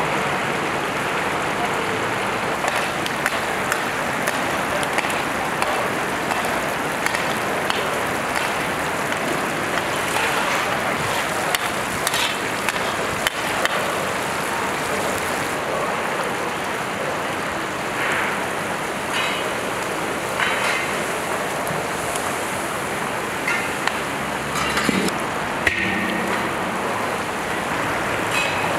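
Steady sizzling hiss of food frying in a large cooking cauldron, with scattered small clicks and knocks.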